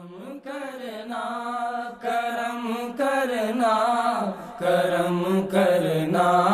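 A male voice singing long, held melodic phrases without clear words, in the style of a naat's opening vocalise, with no beat or percussion.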